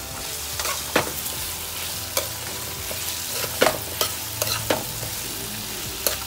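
Onion, tomato and ginger sizzling in hot oil in a stainless steel pan, stirred with a metal spoon that clinks and scrapes against the pan at irregular intervals over a steady frying hiss.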